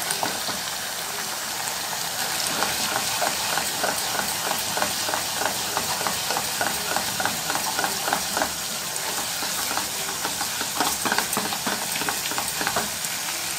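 Kheema (minced meat with onions) sizzling in a non-stick pot on a high flame while a wooden spatula stirs it, scraping the pot again and again. The steady frying hiss goes on throughout, with the quick scrapes coming thickest from about two seconds in.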